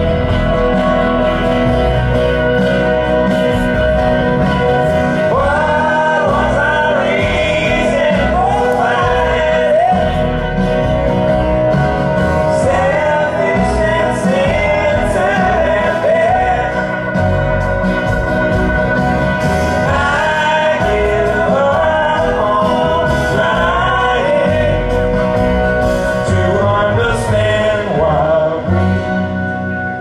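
Amplified live band music at a sound check: a few seconds of instrumental playing, then singing comes in about five seconds in, over guitar.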